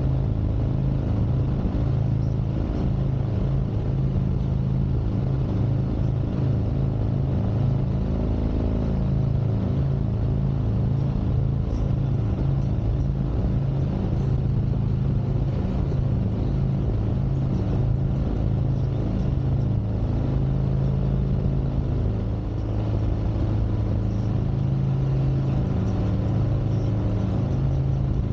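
2021 Harley-Davidson Street Glide Special's Milwaukee-Eight 114 V-twin running on the move, its engine note shifting up and down with throttle.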